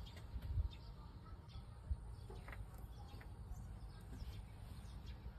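Quiet ambience: faint, scattered short chirps over a low, uneven rumble, with a couple of soft bumps.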